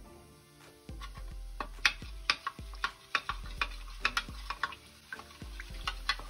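A small spoon stirring potato-starch slurry in a plastic measuring cup, clicking against the sides about two or three times a second, starting about a second in.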